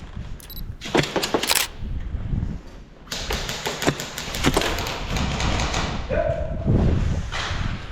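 CO2-powered airsoft MK18 replica with a Wolverine Inferno engine firing short strings of rapid shots, sharp clicking cracks in two clusters, about a second in and again from about three seconds in, over scuffing movement noise.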